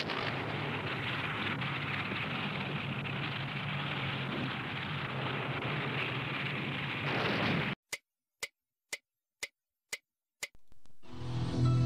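Dense, steady crackling noise with a low hum underneath for about eight seconds, then it cuts off and sharp clock-like ticks sound alone, about two a second. Music comes in near the end.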